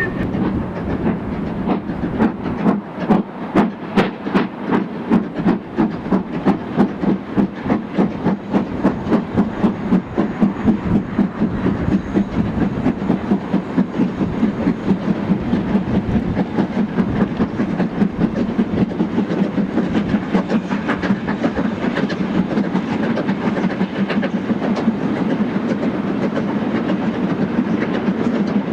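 Steam freight locomotive, an LMS/BR 'Super D' 0-8-0, working hard with strong, even exhaust beats, about two to three a second. For the second half the beats give way to the steady rumble and clatter of a long rake of freight wagons rolling over the rail joints.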